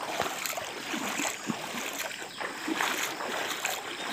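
Fast-flowing floodwater rushing, a steady noisy wash.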